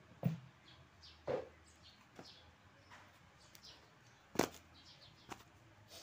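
A few sharp knocks and bumps, the loudest about four seconds in, as plastic parts of a dismantled top-loading washing machine are handled. Small birds chirp faintly.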